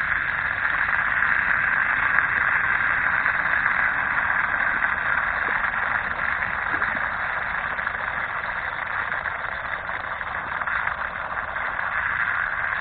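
Water running from an outdoor spigot, spraying off a hand held under the tap and splashing onto the mulch: a steady, loud hiss.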